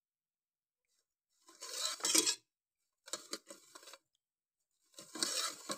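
A metal spoon stirring a thin milk, egg and sugar mixture in a bowl, scraping and clinking against the bowl. It comes in three short bouts, each about a second long.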